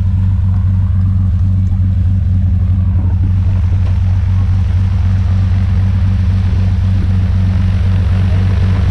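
A single-engine light plane's piston engine idling with its propeller turning, a loud, steady low drone that does not change in pitch.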